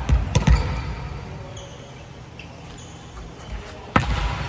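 A volleyball bounced twice on a wooden gym floor, then faint short squeaks of shoes on the floor. Near the end comes one sharp slap: a hand striking the ball on an overhand serve.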